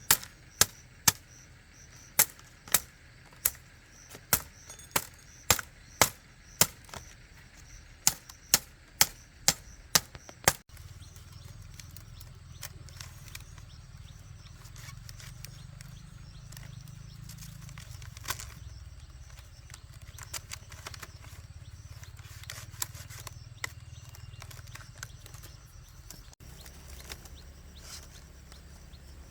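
Regular sharp blows on bamboo or wood, about two a second with brief pauses, from chopping or hammering, for about ten seconds. They stop abruptly and give way to a steady low rumble with a few faint knocks.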